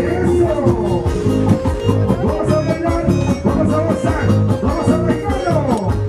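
Loud dance music with a steady beat and a melody over it.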